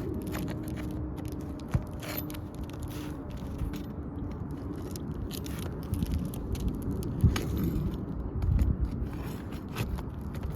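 Irregular scraping and scattered clicks from asphalt roof shingles being lifted and handled while their fasteners are checked, with a few heavier low thumps and rumbles near the end.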